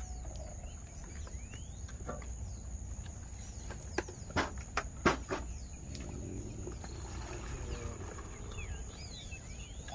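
Insects keep up a steady high buzz while birds chirp now and then. Several sharp knocks come close together about four to five and a half seconds in.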